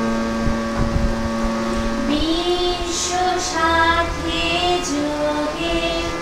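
Background music: a woman singing a slow melody, holding one long note for about two seconds before moving on through short melodic phrases.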